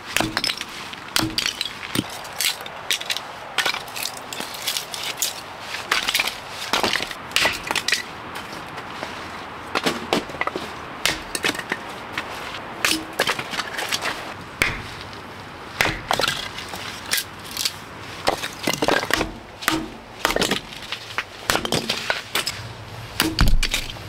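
Firewood being split into kindling on a wooden chopping block: an irregular run of sharp wooden knocks and cracks.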